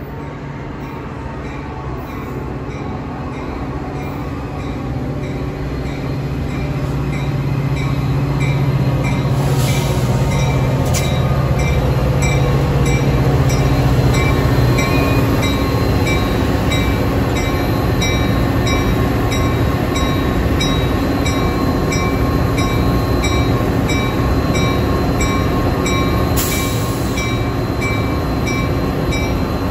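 Metra diesel locomotive hauling a commuter train into the station. Its engine grows louder as the train approaches, then holds steady as it rolls alongside. A steady, evenly repeating ring is heard the whole time, with brief hisses about ten seconds in and again near the end.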